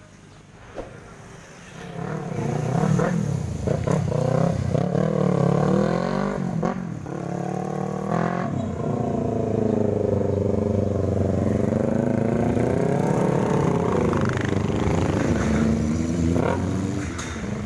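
Several motorcycles pulling out and riding past one after another, their engines revving up and down as they accelerate. They start about two seconds in, after a quiet low background.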